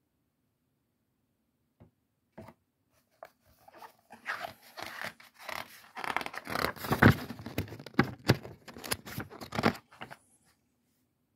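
Pages of a large illustrated book being turned by hand. A few light ticks come first, then about six seconds of paper rustling and crackling as the pages flip over, loudest in the middle.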